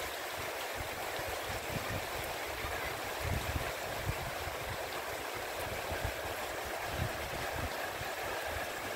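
Heavy rain pouring steadily, with gusts of wind buffeting the microphone in low rumbles.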